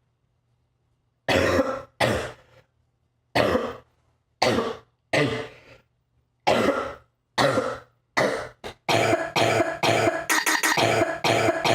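A person coughing. After about a second of silence come single coughs, roughly one a second. From near nine seconds in they run together into a fast, unbroken coughing fit.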